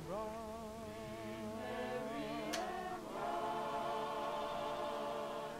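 Background music of voices singing long held notes with vibrato, moving to a new chord about three seconds in. A faint click sounds midway.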